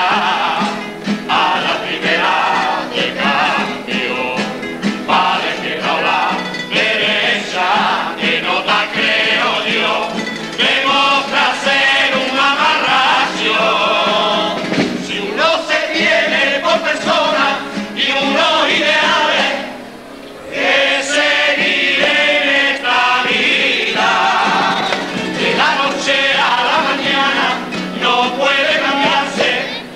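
A carnival comparsa's all-male choir singing in harmony, with a short break in the singing about twenty seconds in.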